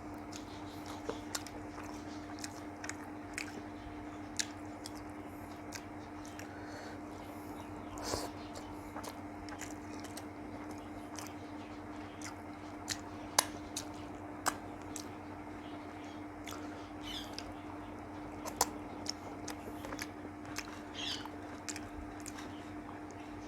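A person chewing and eating with the mouth close to the microphone: scattered wet mouth clicks and smacks at an irregular pace, the loudest about thirteen seconds in, over a steady hum.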